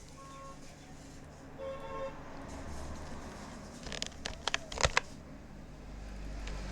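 A few sharp clicks at a computer, about four to five seconds in, over a steady low hum. A short, faint horn-like tone sounds near two seconds in.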